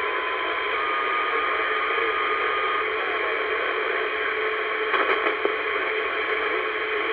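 Static hissing from a 1970s Royce CB radio's speaker between transmissions on channel 19, with a thin steady whistle for about two seconds near the start and a few short crackles about five seconds in.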